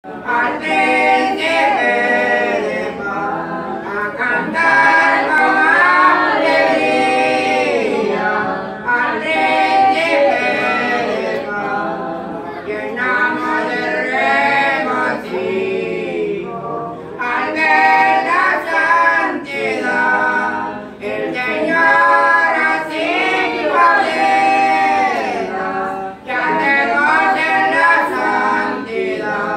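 An older man singing a Spanish-language hymn of praise, one phrase after another, with short breaths between lines.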